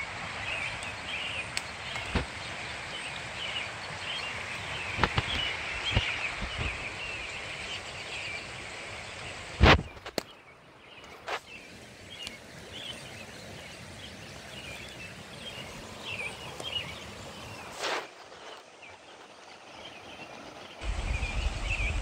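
A creek running steadily, with birds calling and twittering over it. Several sharp knocks and rustles of footsteps or handling cut in, one much louder near the middle, and a loud low rumble comes in near the end.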